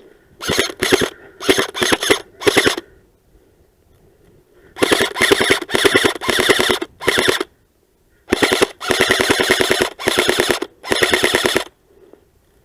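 Airsoft electric gun firing on full auto in a string of short bursts of rapid clicks. The bursts grow longer in the second half, and the longest runs for about a second.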